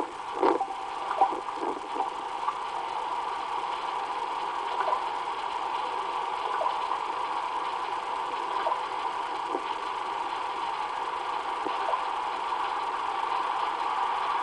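A steady hum from the playback, heard through a computer's speakers. Over it come a few short, low calls or knocks in the first two seconds, then faint scattered clicks, likely from common ravens.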